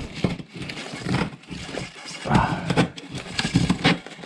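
A wooden stick prying and scraping at a snowmobile's exhaust can, giving irregular knocks and scrapes.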